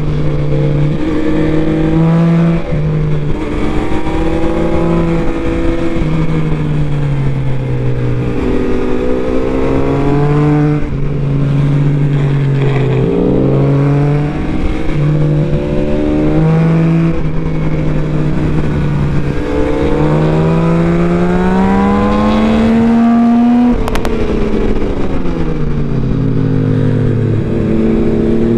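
Yamaha MT-09 SP's three-cylinder engine heard on board, revving up and falling back as the rider works the throttle and gears through a string of bends. The pitch climbs and breaks at each shift, dips low once on the brakes near the end, then climbs again, all over a steady rush of wind.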